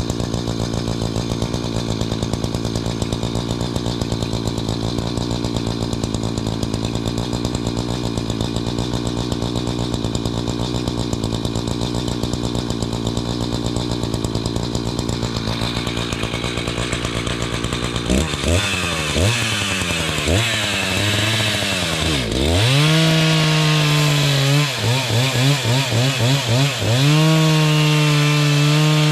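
Two-stroke chainsaw idling steadily, then from about 18 s in being revved again and again, its pitch swooping up and down, with stretches held at high revs near the end.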